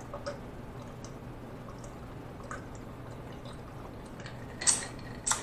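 A person drinking a cold drink in gulps from a large glass mug, with faint liquid and swallowing sounds and small clicks. Two louder short sounds come near the end.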